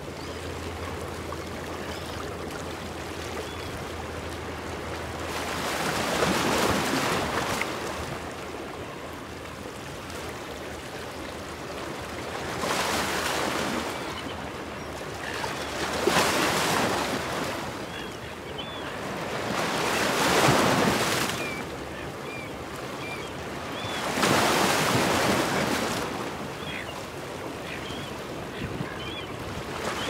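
Ocean waves breaking and washing over a rock shelf, the rushing surf swelling and falling every four seconds or so, with wind on the microphone. A few faint short high calls of seagulls come through between the surges.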